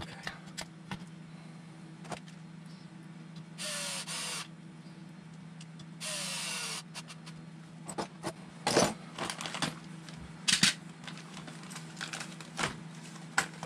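Cordless electric screwdriver running in two short bursts, its pitch dropping as it drives screws in. Sharp clicks and knocks of small hardware and tools being handled follow.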